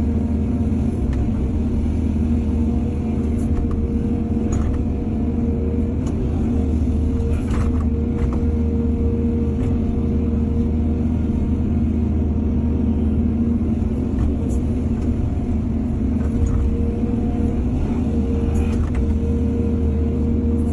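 Excavator's diesel engine running steadily at work, with a few light clanks.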